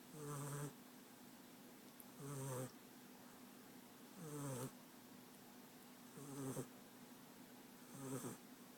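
American Staffordshire Terrier puppy snoring: five short, rasping snores, one about every two seconds.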